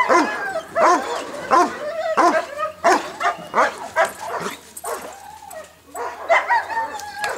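German shepherd barking in a rapid run of sharp barks, about two to three a second, pausing briefly a little past the middle and then starting again. It is agitated barking at a bite sleeve during protection training.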